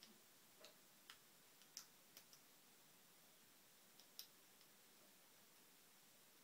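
Faint, irregular clicks of a lock pick working the pins inside an American 1105 series padlock during single-pin picking.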